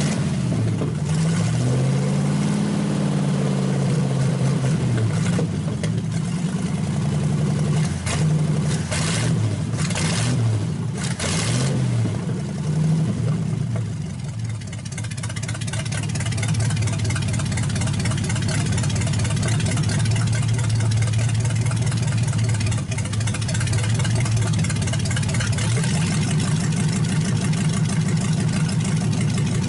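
Small-block Chevy V8 running through open, unmuffled headers, revved up and down by hand at the carburetor for the first dozen seconds, then settling to a steady idle about halfway through as the carburetor is adjusted.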